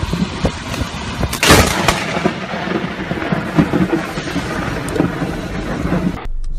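Thunder from a nearby lightning strike: one sharp, loud crack about a second and a half in, then rumbling, over steady road and wind noise from a moving vehicle. The sound cuts off abruptly near the end.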